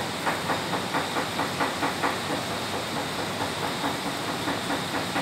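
Gas range burner hissing steadily with wood sticks burning in its flame, over a quick run of light ticks about four to five a second, clearest in the first two seconds.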